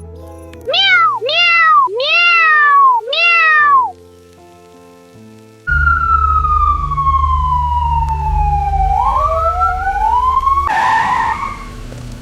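A cat meows four times in quick succession, each call rising and then falling in pitch, over background music. Then a long wail slides down in pitch and rises again over a deep rumble, and a short burst of noise follows near the end.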